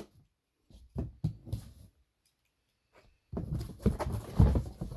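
Cardboard mystery box being opened and handled: a few scattered knocks and rustles, a pause, then a busier stretch of rustling and knocks with one loud thump a little before the end.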